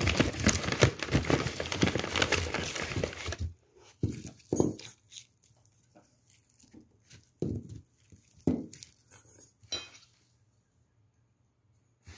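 A brown paper bag crackling and rustling as it is handled for about three and a half seconds, then a few scattered dull knocks and rustles as onions and carrots are set down on a cloth-covered table, over a faint steady hum.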